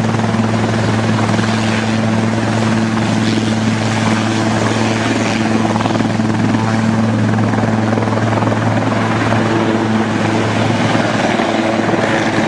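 Helicopter running steadily, close and loud: an even hum from the engine and rotor under a constant rushing noise.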